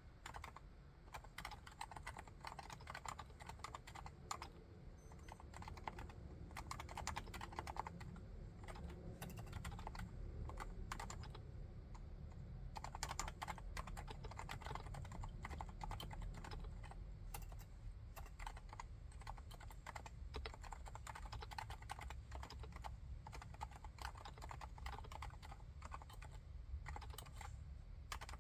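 Continuous typing on a Leopold FC660C keyboard with silent Topre electrostatic capacitive switches: a dense, quiet run of keystrokes.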